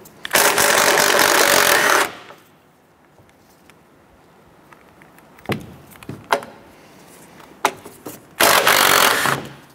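Cordless impact wrench with a 15 mm socket, loosening the strut-mount nuts on a car's strut tower. It runs in a burst of about two seconds, then a few light clicks, then a second burst of about a second near the end.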